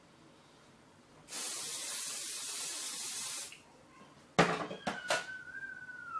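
Aerosol can of hair holding spray sprayed in one steady hiss of about two seconds, followed a second later by a sharp click.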